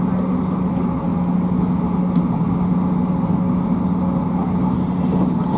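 Interior running noise of a Class 158 diesel multiple unit at speed: a steady drone with a constant hum over an even rumble of the wheels on the track.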